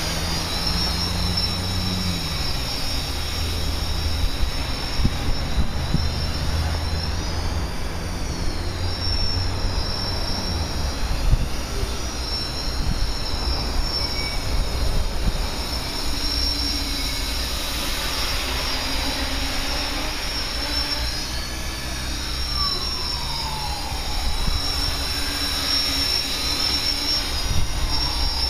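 Six small brushless motors on a hexacopter spinning three-blade propellers in flight: a steady high whine over a low rumble, its pitch gliding up and down as the throttle changes.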